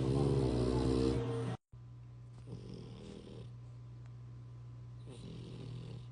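French bulldog snoring in his sleep: two slow, soft snoring breaths a couple of seconds apart, over a steady low hum. Before the snores there is about a second and a half of louder music, which cuts off abruptly.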